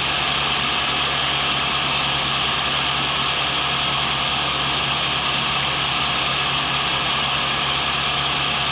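Cincinnati tool and cutter grinder running steadily: a constant motor hum under a bright, even hiss from the spinning wheel, with the carbide blank fed up close to the wheel.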